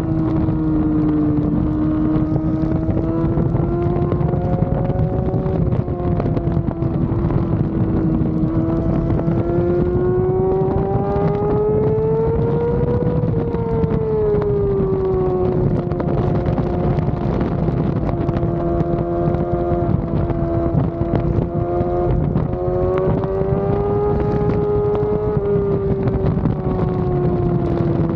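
Yamaha R6's inline-four engine running hard at high revs under way, its pitch climbing slowly over several seconds and dropping back, with a quick step up and back down near the end, over a steady rush of wind on the microphone.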